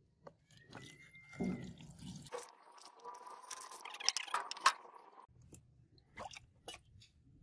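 Liquid poured into a plastic tub over a rusty steel cleaver blade, then the acid bath crackling and fizzing as it reacts with the rust, then small splashes and drips as a gloved hand moves the blade in the liquid.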